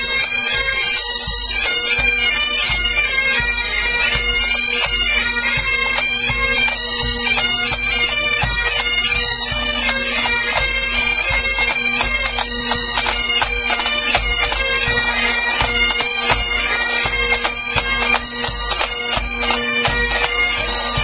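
Scottish pipe band playing: Great Highland bagpipes sound a tune over their steady drones, with snare and bass drums beating beneath.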